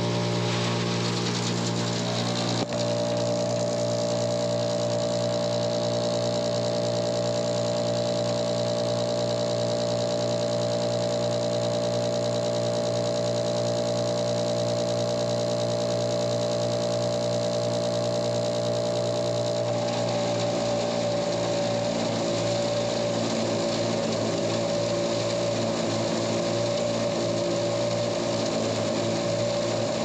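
Tractor engine running at a steady idle, warming up before the silage blower is loaded. A steady, higher machine whine joins about three seconds in and drops slightly in pitch about two-thirds of the way through.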